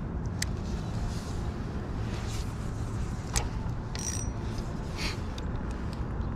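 A few light clicks and ticks from a spinning reel and rod being handled while a small jig is let down, over a steady low rumble.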